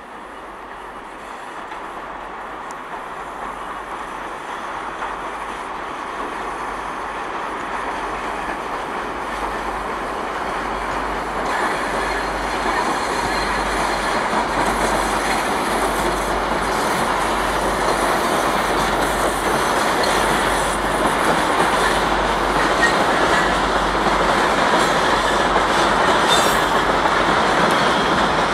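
2TE10M diesel locomotive hauling a freight train, its engine and rolling wheels growing steadily louder as it approaches and passes close by. Near the end, the wheels of passing tank wagons run over the rails.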